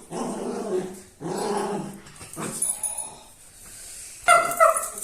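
A dog growling in three long, rough rumbles, then a short, higher-pitched bark about four seconds in.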